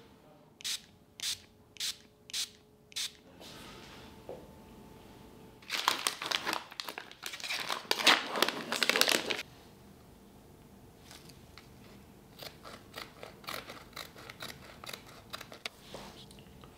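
Foil dressing pouch being torn open and crinkled by gloved hands, loud for about three and a half seconds near the middle. Softer crackling follows as the dressing is handled. Before that come five short, sharp sounds about half a second apart.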